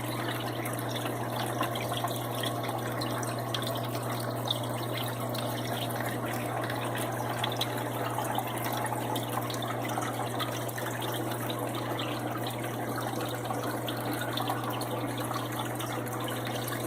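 Aquarium water trickling and bubbling steadily over a constant low hum.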